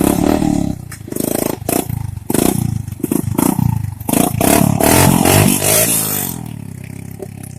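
ATV engine revving up and down repeatedly under load, with clattering knocks.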